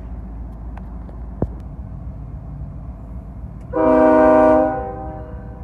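Ferromex diesel freight locomotive's air horn sounding one chord blast of about a second, starting a little past halfway, over a low steady rumble.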